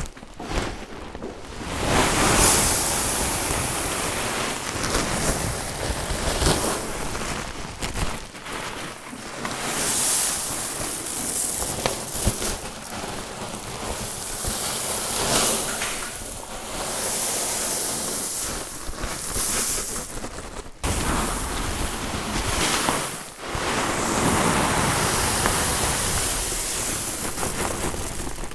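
Ceramic tumbling media poured from bags into the bowl of a Giant GB3 vibratory tumbler: a steady rushing rattle of many small ceramic pieces. The pouring comes in several runs that swell and ease, with brief breaks between them.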